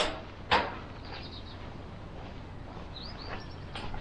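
Small birds chirping faintly, with two sharp knocks about half a second apart at the start.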